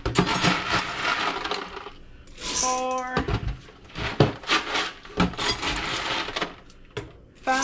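Dry pinto beans poured from a measuring cup into glass quart canning jars: a dense rattle of hard beans hitting glass, in a few separate pours.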